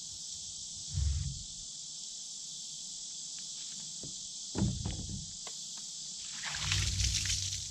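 Steady high drone of insects, with a few low thumps of lumber boards being handled. Near the end comes a hiss of water being sprayed onto the boards.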